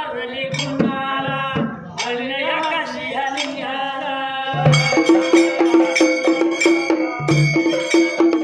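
Male voices singing a Dhangari ovi, a Marathi devotional folk song, together. About halfway through, a fast steady beat of a large double-headed dhol and a small stick-beaten frame drum comes in under the voices.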